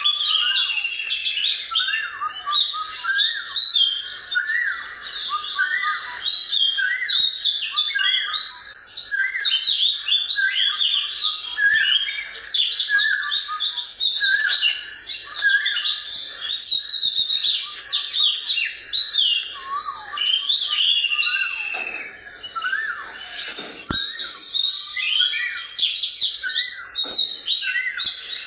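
Small birds chirping and whistling continuously, with many quick overlapping calls.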